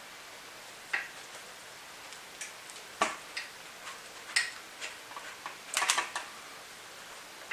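Scattered small metallic clicks and taps, with a quick cluster about six seconds in, from a tool and hands working loose the clip that holds the copper cooling-water inlet tube on a Hangkai 3.6 hp outboard powerhead.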